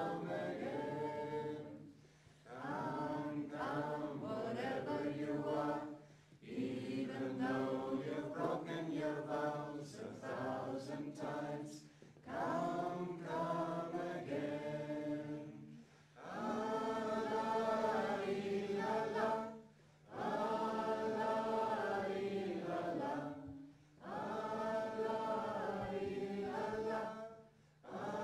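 Choir singing a chant in held phrases of a few seconds each, broken by short pauses.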